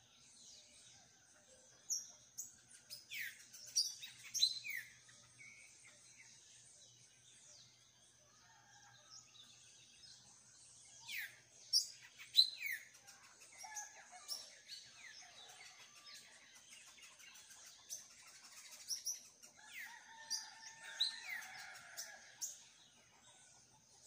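Birds chirping: short, sharp calls that sweep quickly down in pitch, coming in clusters of several at a time, over a faint steady high-pitched background.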